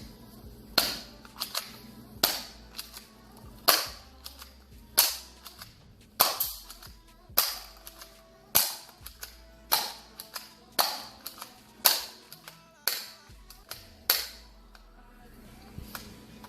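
Airsoft Desert Eagle replica pistol firing a string of about a dozen sharp shots, roughly one a second, stopping shortly before the end.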